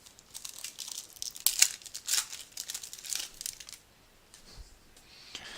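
A trading-card pack wrapper torn open and crinkled in a run of sharp crackles that dies away about two-thirds of the way through.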